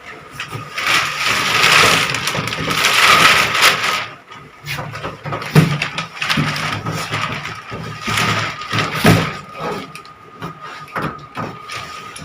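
Cardboard and plastic packaging being handled and pulled apart, crackling and rustling with scattered knocks.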